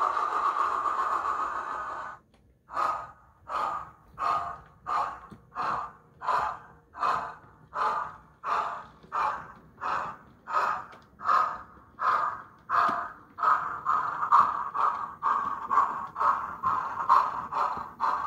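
DCC sound decoder in an OO-gauge Bulleid Merchant Navy Pacific model, 35004, through its small onboard speaker: a steady steam hiss for about two seconds, then the exhaust beats of the loco getting under way. The beats come about one and a half a second, growing louder and slightly quicker as the model draws nearer.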